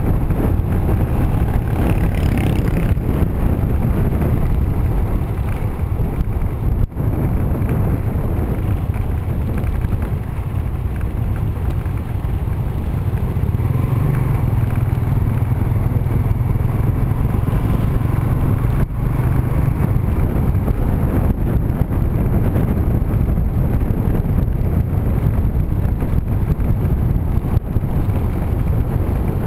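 Wind buffeting the microphone of a moving motorbike over the steady running of small motorbike engines.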